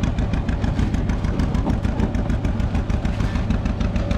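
Tractor engine chugging steadily while pulling a hayride wagon, with a fast, even beat of about nine pulses a second.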